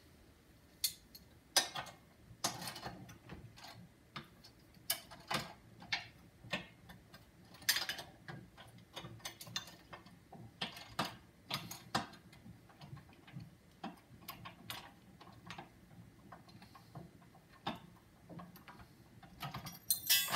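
Irregular metal clicks and light clinks of a hand wrench working the nuts and bolts on a steel hydraulic press frame, about one or two a second, busier near the end.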